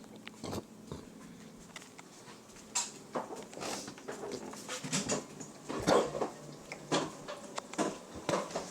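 Scattered light knocks and clicks, more frequent in the second half.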